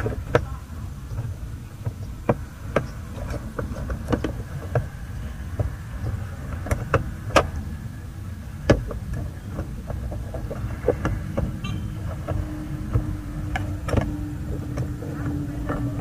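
Scattered sharp plastic clicks and taps as a car side-mirror glass and its plastic backing are handled and pressed onto the mirror's mounting clips, over a low steady rumble; a steady low hum joins about three-quarters of the way through.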